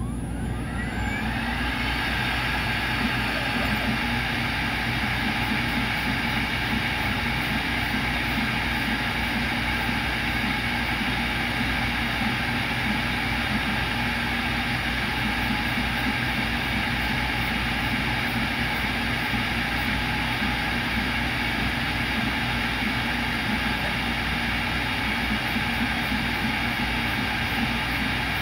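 CNC router spindle spinning up, its whine rising in pitch over the first couple of seconds, then running steadily at speed with a dense, steady whine.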